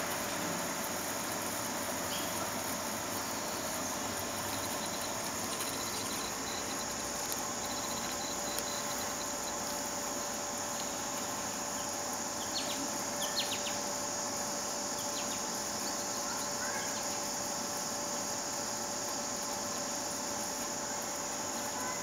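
Steady high-pitched insect chorus, with a few short bird chirps in the middle.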